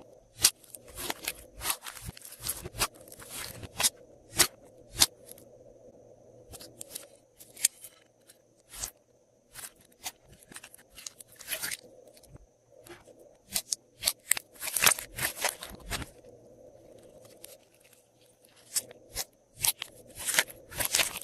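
Glossy slime being squished and mixed by hand, giving irregular crisp clicks, pops and crackles. The sounds come in clusters with short quieter gaps between them.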